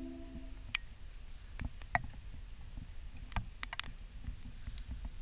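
Soft music fades out in the first second. After that come faint, scattered clicks and knocks over a low rumble, like handling noise from a camera being moved about.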